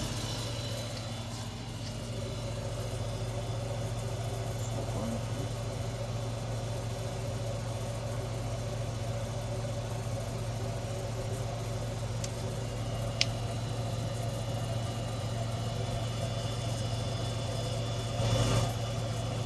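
Newly fitted 1 hp refrigeration compressor of a three-door chiller running with a steady low hum as it pulls the cabinet down toward its thermostat set point. A single sharp tick sounds about two-thirds of the way through.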